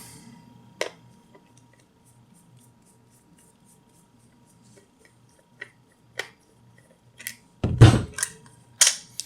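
Small clicks and taps of plastic being handled as the battery cover comes off the back of a compact digital multimeter. The ticks are faint at first, with a few sharper clicks and a louder knock near the end.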